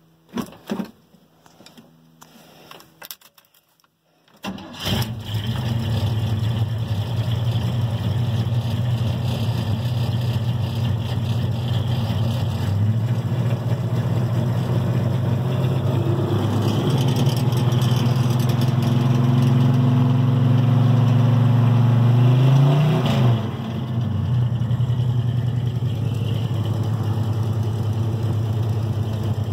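A few clicks and knocks, then a GM square-body pickup's engine starts about four seconds in and settles into a steady idle, heard from inside the cab. Around the middle the idle speed steps up and holds, then drops back down with a falling pitch.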